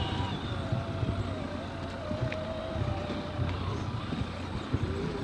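Electric motor and gearbox whine of an RC scale crawler truck driving slowly over rough ground, its pitch wavering.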